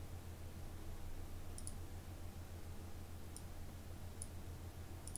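A few faint computer mouse clicks, spread out, over a steady low hum.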